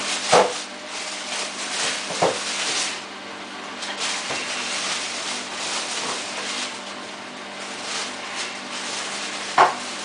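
Samsung WF8804RPA front-loading washing machine in its final spin: a steady motor hum with a rushing whoosh from the drum at high speed. A few short knocks break in, about half a second in, about two seconds in, and near the end.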